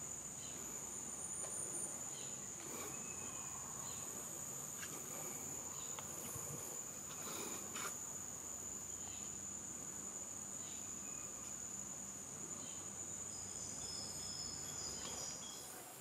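Rainforest insect chorus: one continuous high-pitched buzzing tone held steady, with faint scattered chirps and a few soft ticks over it.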